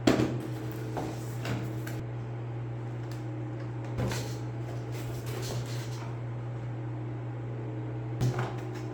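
Packaging being handled during an unboxing: a few scattered knocks and rustles over a steady low hum.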